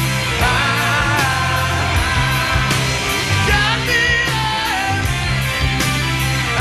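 Rock band playing live: a sung vocal line with vibrato over bass and steady drum hits.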